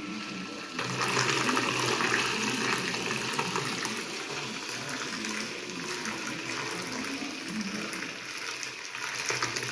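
Homemade hand blender with a 12 V DC motor running in a pot of soaked dal, its blade churning the wet batter with a steady liquid swishing. It gets louder about a second in.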